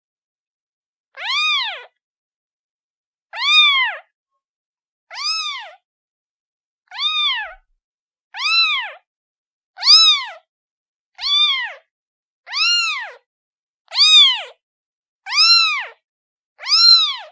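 A kitten meowing over and over: about eleven short, high calls, each rising and then falling in pitch, one every second and a half or so.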